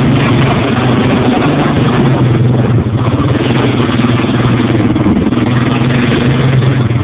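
Quad bike (ATV) engine running steadily at a fast idle, its pitch wavering slightly without any big revs.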